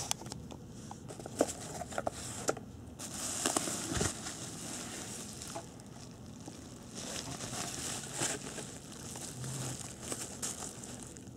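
Bubble wrap crinkling and rustling as it is handled and pulled open, with a few sharp clicks along the way.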